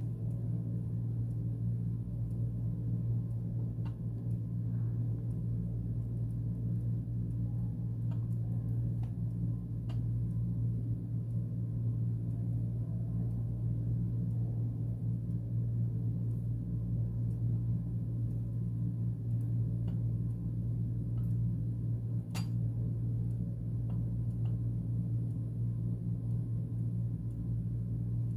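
A steady low hum with no break, and a few faint clicks, the clearest about three quarters of the way through.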